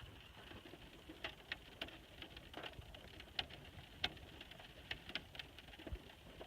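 Faint outdoor ambience: a steady high-pitched hum with scattered, irregular clicks and ticks.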